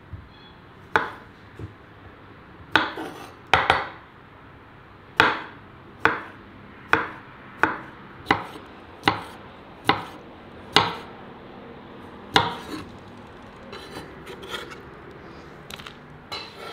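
Knife chopping food on a cutting board: about a dozen sharp single strokes, a little under one a second, then a few lighter clicks near the end.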